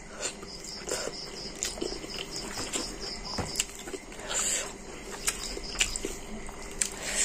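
A person chewing a mouthful of rice and curry eaten by hand, with scattered soft wet mouth clicks and smacks.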